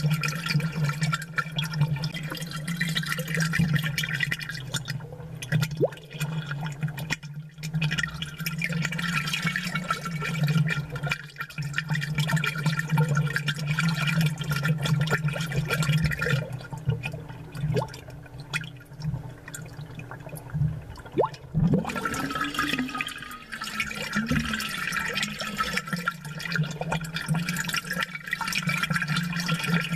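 Amplified aquarium water bubbling continuously over a steady low hum.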